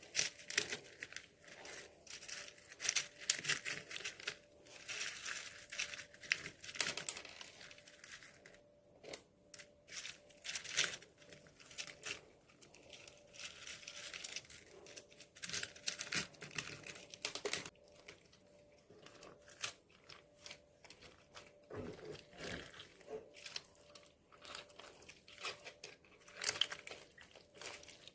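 Colourful slime being squished and stretched by hand, giving dense runs of crackles and small clicks and pops that come in clusters.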